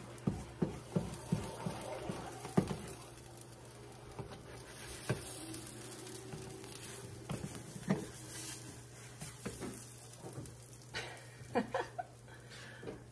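A plastic spatula scraping, prodding and tapping in a small nonstick frying pan, irregular clicks and knocks, while a smashed-potato patty fries with a faint sizzle.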